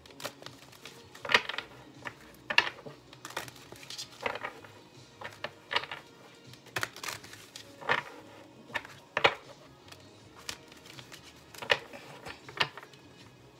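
Tarot cards being shuffled and handled: a series of sharp snaps and taps, roughly one a second, over faint background music.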